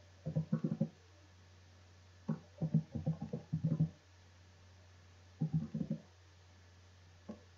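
Computer keyboard keystrokes as numbers are typed in, coming in three quick runs of taps with pauses between and a single tap near the end, over a steady low electrical hum.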